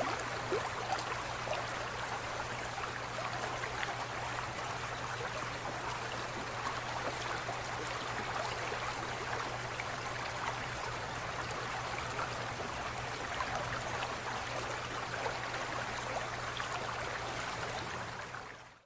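Aquarium water trickling and bubbling, with a steady low hum underneath; it fades out near the end.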